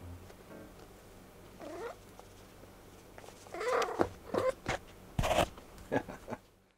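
Domestic cats meowing: a short, gliding meow about two seconds in and a stronger one about three and a half seconds in. They are followed by a run of sharp knocks and thumps, the loudest about five seconds in, as a cat jumps down off a cushioned perch.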